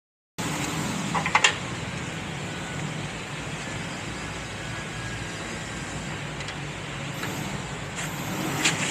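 Steady mechanical background noise with a low hum, broken by a few sharp clicks about a second in and again near the end.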